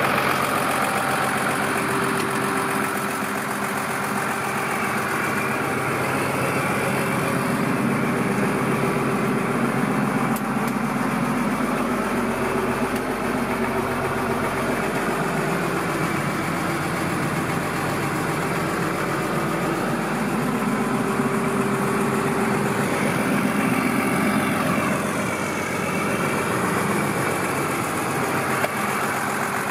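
Ford 7840 Powerstar tractor's diesel engine idling steadily.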